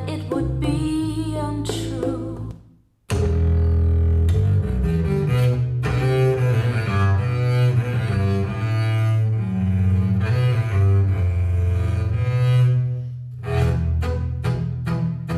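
Recorded music played through Focal Stella Utopia EVO loudspeakers. One piece cuts off into a brief silence about three seconds in. A new piece then starts with deep, sustained low notes, and turns to short repeated notes near the end.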